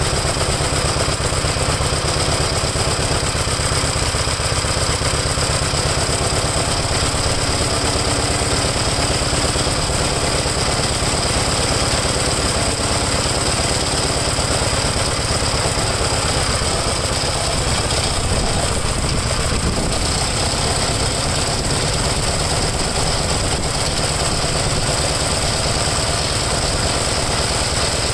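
1962 Gravely LI walk-behind tractor's single-cylinder engine running steadily at idle, with an even, rapid firing beat. The owner thinks it is running too rich.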